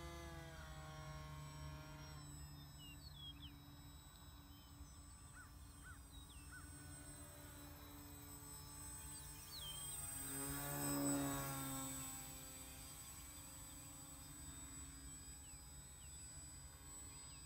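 Distant buzz of a small foam RC plane's brushless electric motor and 7x3 propeller in flight. It swells and shifts in pitch as the plane passes closer about eleven seconds in, then fades again.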